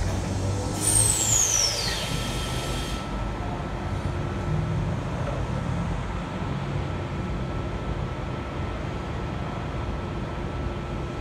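Double-deck electric train at the platform: about a second in, a burst of air hiss with a whistle falling in pitch lasts about two seconds, typical of a pneumatic air release. A steady low rumble from the train follows.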